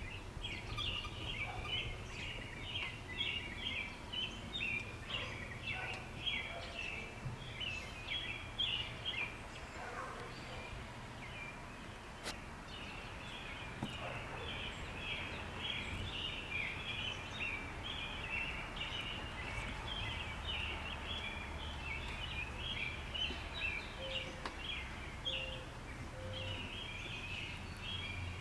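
Continuous chirping from small woodland creatures, fast repeated high calls that pause briefly about halfway and again near the end, over a low rumble of outdoor background noise.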